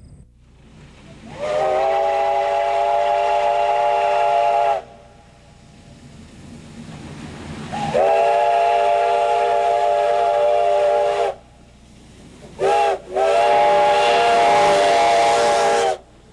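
Steam whistle on the Black Hills Central 1880 Train's steam locomotive blowing two long blasts, a short one and a final long one: the long-long-short-long grade-crossing signal. Each blast sounds several steady tones at once, with a rush of steam at its start.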